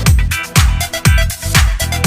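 Background dance music with a steady four-on-the-floor kick drum, about two beats a second, and hi-hats over it.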